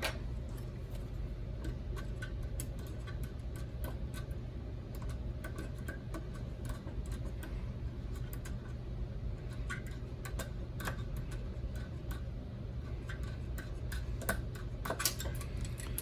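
Small, scattered metal clicks and taps of a screwdriver and small wrench working screws on a microwave down converter's metal chassis, with a few denser clusters of clicks past the middle and near the end. A steady low hum runs underneath.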